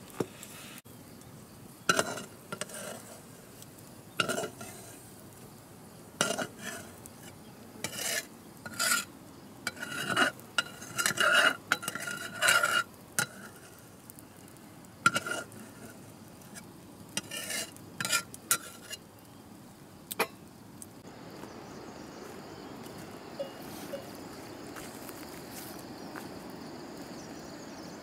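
Metal ladle stirring a metal cooking pot: irregular scrapes and clinks against the pot, some ringing briefly. About two-thirds of the way through they stop and give way to a steady outdoor hiss.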